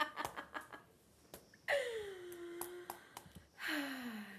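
The tail of a woman's laughter into a close microphone, then two drawn-out vocal sighs, each sliding down in pitch, the second lower than the first.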